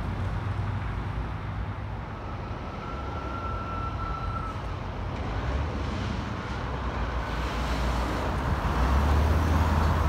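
Road traffic running steadily, with a heavy truck close by whose low rumble grows louder near the end; a thin steady whine sounds for a couple of seconds about two seconds in.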